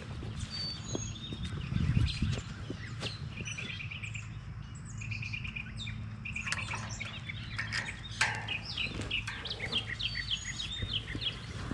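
Several songbirds chirping and trilling, with a low steady hum underneath.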